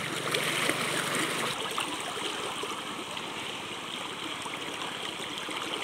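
Water splashing and churning continuously as a man wades chest-deep in a stream, thrashing his arms through the water while working a fishing net.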